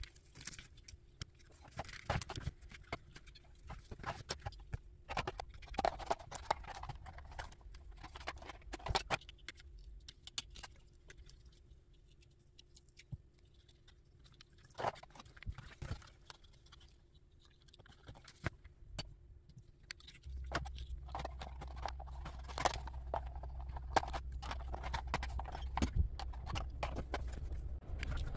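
Hands handling a 1/14 scale RC car chassis: scattered small clicks, taps and knocks of plastic parts, wires and connectors being tucked in and pressed into place. A low steady hum comes in about two-thirds of the way through.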